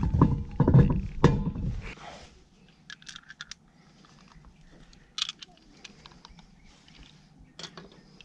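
Heavy metallic knocking and rattling of hand tools and parts being worked on a rear brake and wheel hub, lasting about two seconds. After that come a few sharp, scattered clicks.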